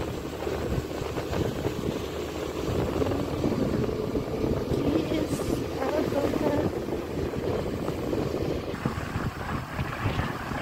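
Motorcycle riding along with its engine running steadily, mixed with a rushing, rumbling buffet of wind on the microphone.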